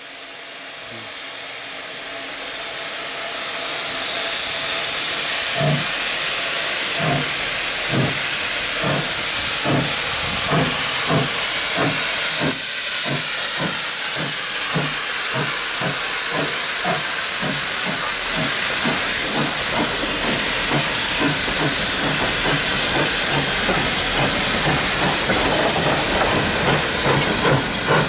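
SECR steam locomotive pulling away with its train: steam hisses, growing louder over the first few seconds, then exhaust beats begin about five seconds in and come steadily faster as it picks up speed.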